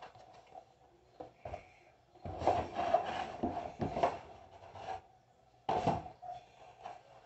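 Cardboard shipping box and packaging scraping and rustling as a hand rummages inside and lifts items out, with a longer run of scraping from about two to five seconds in and a short burst near six seconds.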